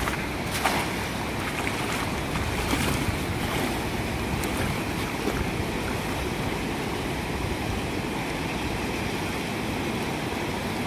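Fast-flowing river water rushing steadily, with a short splash about a second in as a thrown cast net lands on the surface.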